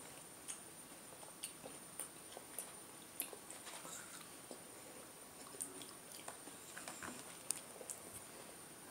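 Faint chewing of raw cucumber, a scatter of short soft mouth clicks at irregular intervals.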